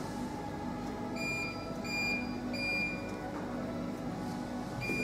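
Electronic beeper sounding short, high beeps: a run of three about a second in and another near the end, over a low steady machine hum.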